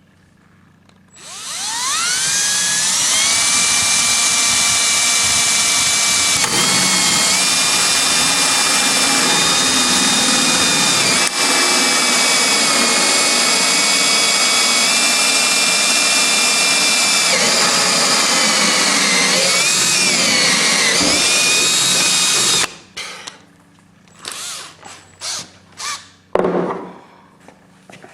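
Power drill spinning up with a rising whine and running steadily at full speed for about twenty seconds, boring the drain plug hole in a boat hull. The pitch wavers and sags briefly near the end as the bit loads, then the drill stops suddenly, leaving a few short knocks and handling noises.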